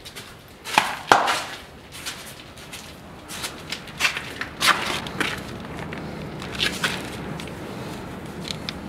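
Irregular footsteps scuffing and crunching over grit and debris on a dusty floor, with a louder knock about a second in.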